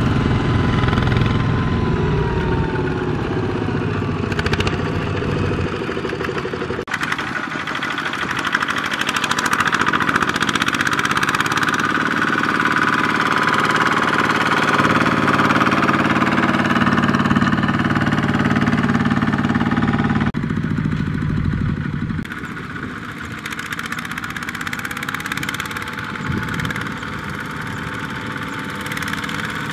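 Single-cylinder diesel engines of two-wheel walking tractors running under load as they haul trailers of rice sacks through a soft harvested paddy. The engine sound changes abruptly twice.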